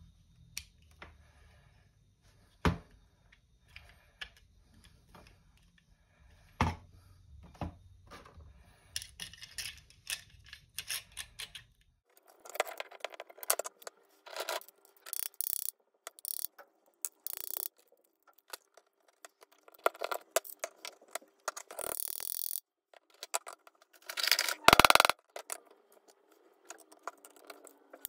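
Small metal parts and hand tools being handled: irregular clicks, taps, scraping and rattling, sparse at first and busier in the second half, with a few sharp knocks, the loudest about three seconds before the end.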